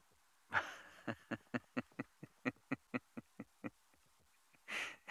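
A man laughing: a breathy run of short chuckles, about four or five a second, trailing off, then a sharp intake of breath near the end.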